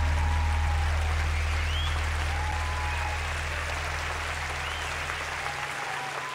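Theatre audience applauding, with a few cheers rising above the clapping, over a low hum that fades out about five and a half seconds in.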